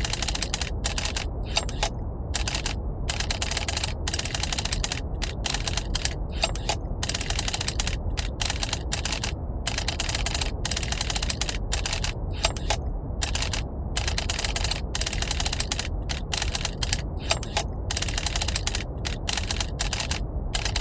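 Typewriter keys clattering in a fast, continuous run broken by short gaps, over a steady low brown-noise rumble.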